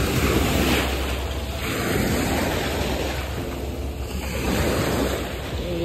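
Small waves washing and swirling over rocks at the water's edge, swelling and easing a few times, with wind rumbling on the microphone.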